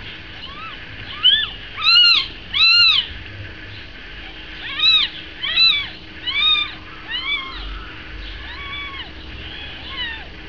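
Newborn kittens mewing: about a dozen short, high-pitched calls that rise and fall in pitch, the loudest two to three seconds in, the later ones softer.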